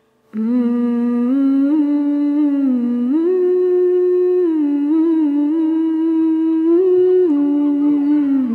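A solo voice humming a slow melody in long held notes, sliding smoothly up and down between them; it comes in just after the start out of near silence.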